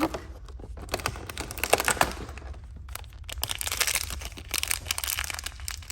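Plastic and cardboard toy packaging crinkling and clicking as it is opened by hand to take out a small figure, in two busy spells of rustling and crackling.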